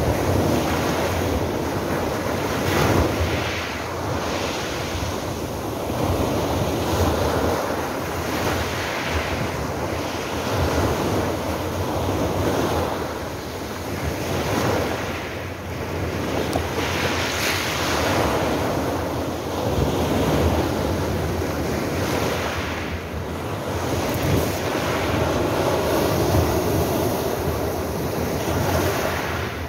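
Small sea waves breaking and washing up over a pebble beach, the surf hiss swelling every two to four seconds.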